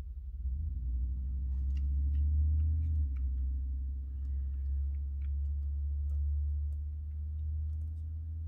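Faint scattered clicks and taps as a die-cast metal toy truck with rubber tyres is handled and turned over in the fingers, over a steady low rumble.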